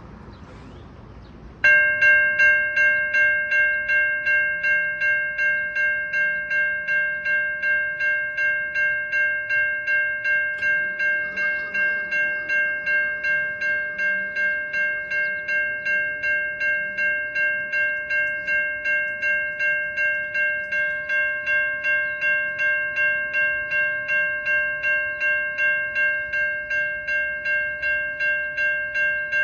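Railroad crossing warning bell starts ringing about two seconds in and keeps ringing steadily, about two strikes a second. The bell is the crossing's warning that a train is approaching.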